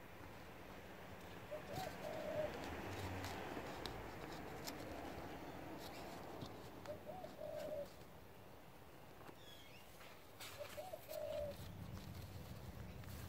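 A dove cooing three times, one short call every few seconds, over soft scraping and rustling of soil and a few light clicks as gloved hands and a small trowel dig in the dirt.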